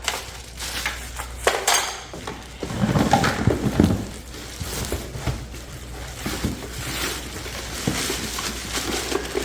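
Plastic parts and packaging being handled while a pressure washer is unboxed: irregular rustling, clunks and clicks, busiest a few seconds in.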